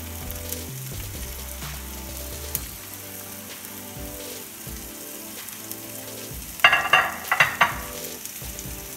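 Chopped onion sizzling in the leftover hot oil of a nonstick frying pan as it is tipped in. About seven seconds in, a brief run of loud, sharp clinks with a ringing tone.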